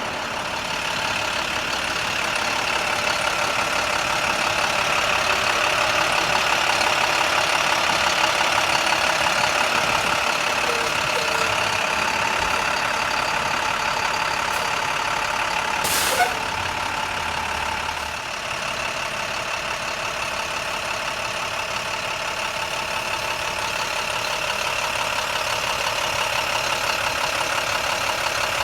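Steady mechanical hum, like a running engine or machine, with several held tones throughout. A short sharp hiss about sixteen seconds in.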